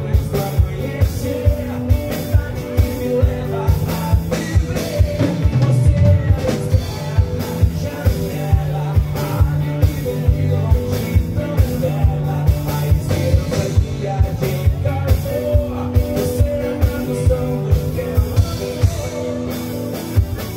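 Live band playing a rock song: a man singing over acoustic guitars and a drum kit, with a steady kick-drum beat.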